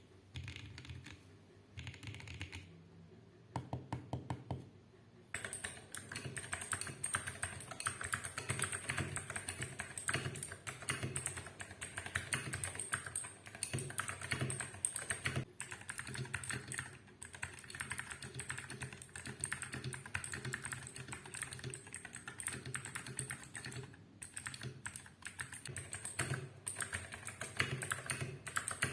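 Typing on a Vortexseries VX8 mechanical keyboard with clicky blue switches: rapid sharp key clicks. A few short bursts of keystrokes at first, then steady fast typing from about five seconds in.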